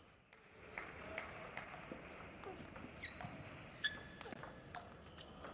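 Table tennis rally: the celluloid ball clicking off the bats and the table in quick, irregular succession, a few times a second, with a few short squeaks among the hits. The loudest hit falls a little before the four-second mark.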